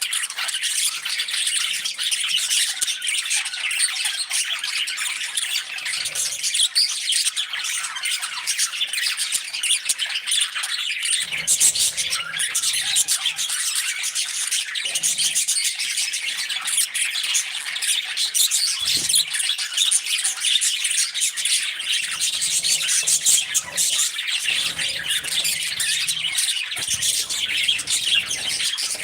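A flock of pet budgerigars and other parrots chirping and chattering continuously, many birds calling over one another.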